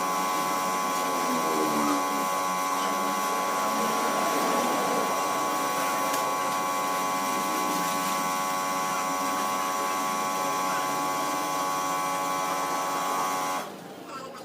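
A power tool's motor running with a steady whine, then cutting off suddenly near the end.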